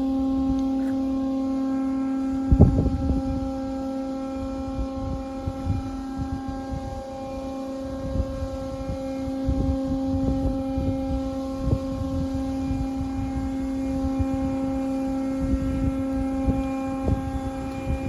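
Steady droning hum from a motor or engine, holding one pitch throughout, with low thumps of wind or handling on the microphone, the strongest about two and a half seconds in.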